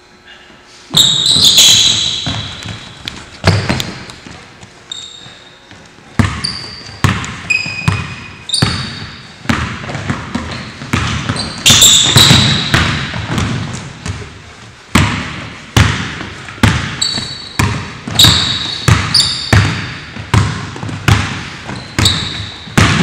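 Basketball dribbled hard on a hardwood gym floor, each bounce echoing in the hall, starting about a second in and going on in an uneven rhythm of one or two bounces a second. Short high sneaker squeaks come in among the bounces as the players cut and shift.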